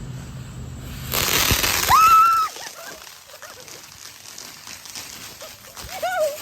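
Small tabletop firework going off: a loud rushing hiss starts about a second in and cuts off after about a second and a half, with a shrill high note near its end. Fainter crackling and popping follow, and a short wailing cry comes near the end.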